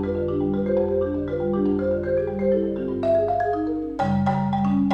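Concert marimba played with mallets: a dense pattern of overlapping held notes in the low and middle range that climbs in pitch, then louder low notes struck with sharp attacks about four seconds in.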